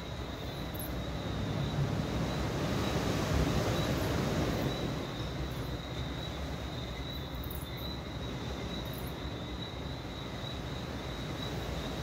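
Night ambience: a steady, high-pitched pulsing chorus of night creatures, under a low rumble that swells about two to five seconds in and then eases off.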